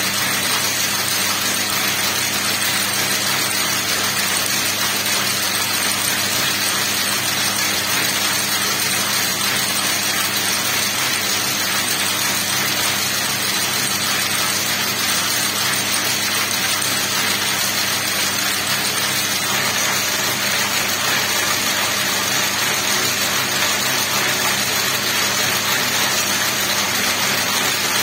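Bobbin braiding machine running steadily, its bobbin carriers circling the track plate and its gears turning, giving a dense, even mechanical whir that does not change.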